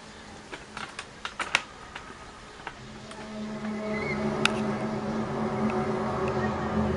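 A few sharp clicks, then about three seconds in a low, steady drone made of several held tones swells up and keeps going. It is an unexplained noise heard from the sky.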